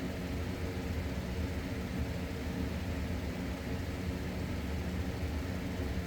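Steady machine hum with a low, even drone and no changes.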